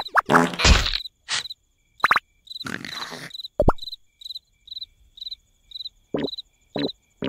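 A cartoon night ambience of a cricket chirping steadily, about two short high chirps a second. It comes after a second of brief cartoon vocal noises from the larvae, and a few short blips and a soft thump fall in among the chirps.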